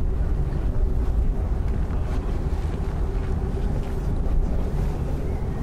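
Steady low rumble of city ambience with wind buffeting the microphone, and a faint steady hum underneath.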